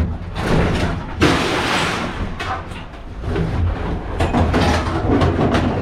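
Knocks and clatters of junk being handled, with a loud scraping burst about a second in and a quick run of knocks near the end, over a steady low vehicle engine hum.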